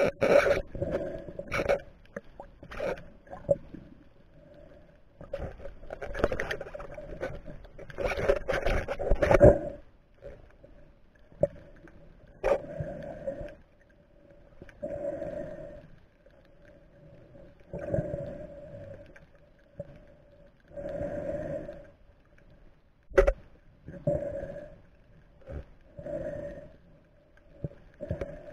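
Muffled water sloshing and whooshing picked up by an action camera in its waterproof housing just under the sea surface. The surges come thick and irregular at first, then about one every three seconds, with a couple of sharp knocks against the housing.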